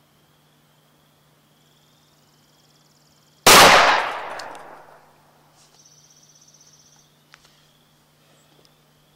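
A single shot from a 4-inch S&W Model 10 revolver firing Buffalo Bore .38 Special +P 158-grain FBI load, about three and a half seconds in, its echo dying away over about a second and a half. Crickets chirr faintly throughout.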